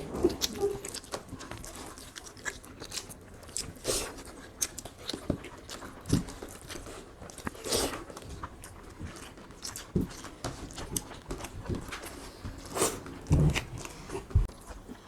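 People eating beef curry and rice fast in an eating contest: irregular chewing and wet mouth smacks, with scattered short clicks.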